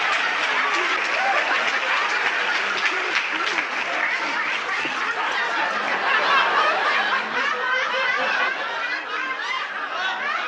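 Studio audience laughing and applauding in one long, sustained laugh, many voices together.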